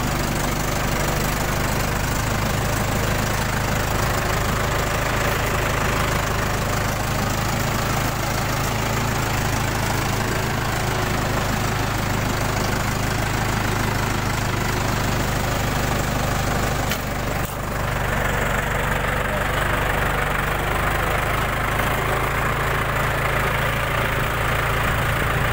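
Tractor diesel engine running steadily under way, heard close up from the driver's seat, with a brief dip in the sound about 17 seconds in.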